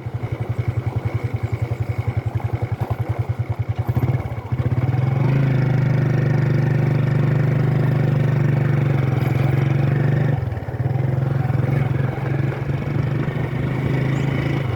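A vehicle engine running, its low firing pulses audible at first, then picking up speed and holding steady for about five seconds before dropping back to a slower pulse.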